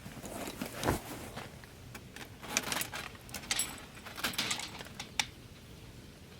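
Gear being handled: rustling with a run of sharp clicks and light clinks that come and go for about five seconds.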